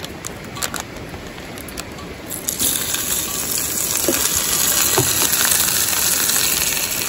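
Clicks and crinkling of a plastic sausage package being cut open. Then, about two and a half seconds in, raw sausages go into a hot frying pan and sizzle loudly and steadily.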